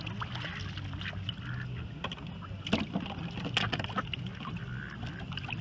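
Water lapping and sloshing against a boat's swim platform close to the water surface, with a steady low hum underneath. Scattered sharp clicks and taps come from mallard ducks' bills and feet on the plastic platform.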